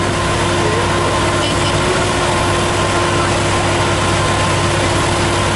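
Airport crash tender's engine and fire pump running steadily while its roof turret throws a water jet, with a constant tone over a low hum and the even rush of the spray.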